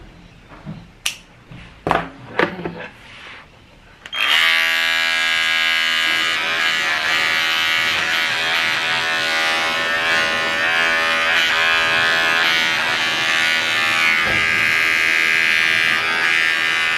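Cordless dog grooming clipper switching on about four seconds in and running with a steady buzzing hum as it shaves a puppy's coat. A few sharp clicks come before it.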